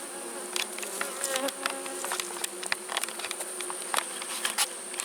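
Honeybees buzzing around an opened hive in a steady hum, with many scattered sharp clicks and taps over it.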